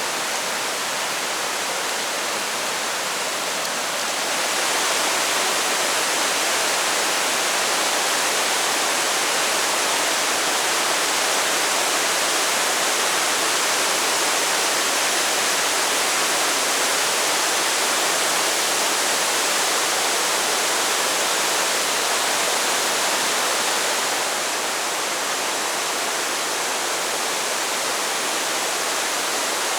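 Waterfall: a steady rush of falling water that grows louder about four seconds in and eases back a little near the end.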